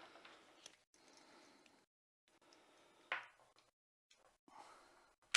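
Handling noise from a carrying strap being fitted to a Bluetooth speaker: faint rustling and fumbling, a soft knock about three seconds in, and a sharp snap near the end as a clip engages.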